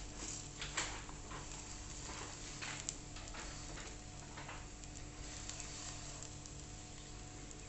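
Flatbread dough sizzling faintly in a hot oiled non-stick pan, with scattered small crackles of oil and a few soft taps of fingers pressing the dough, over a steady low hum.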